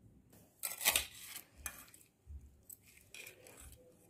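Light clinks and scrapes of stainless steel kitchen utensils, a spoon, a bowl and a mixer-grinder jar being handled, in several short scattered touches.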